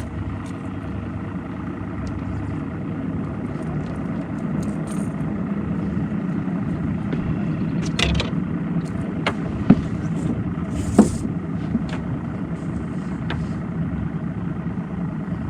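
Boat motor running steadily, with a few sharp knocks and clicks over it, the loudest about 8, 10 and 11 seconds in.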